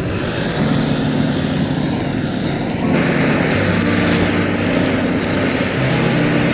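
Steady mechanical hum of a running motor, its pitch shifting in small steps, over a rushing noise that grows louder about three seconds in.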